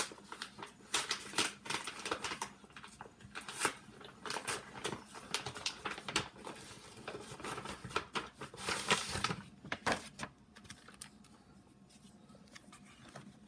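Packaging and comic books rustling and crinkling as a comic grab bag is opened and handled, with many irregular sharp taps and clicks. It turns quieter about ten seconds in.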